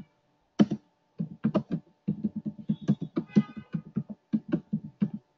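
Typing on a computer keyboard: one keystroke, a short pause, then a steady run of uneven keystroke clicks.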